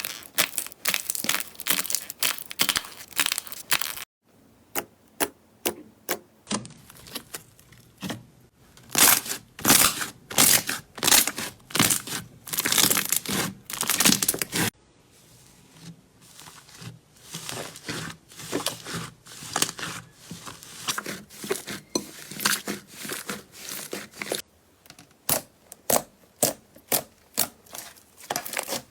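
Slime being squeezed, pressed and poked by hand, giving runs of sharp crackling and crunching, with a few brief quieter breaks.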